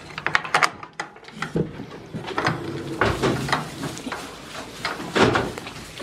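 Knocks, clicks and rattles of a wooden barn stall door and wire-mesh gate being handled and opened, a scattered series of sharp knocks with the loudest about five seconds in.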